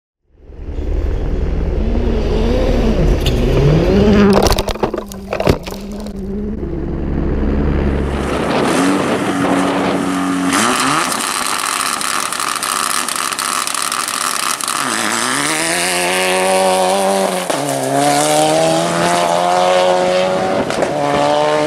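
Rally car engines at full throttle on a stage, revving up and dropping in pitch at each gear change, with tyre and road noise. A few sharp knocks come around five seconds in.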